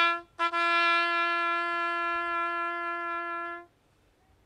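Bugle sounding a military call at a remembrance service: a short note, then one long held note that stops about three and a half seconds in.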